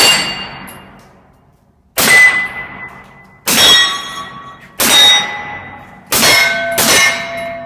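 Six suppressed 9mm pistol shots from a SIG P226 fitted with a SilencerCo Osprey 45 suppressor, each met at once by a steel target plate ringing and dying away. The last two come less than a second apart.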